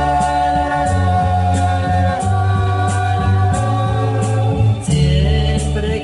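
Instrumental passage of a love song: held chords over a repeating bass line, with a short cymbal-like tick about every 0.7 seconds. About five seconds in, the chords give way to a new, higher line.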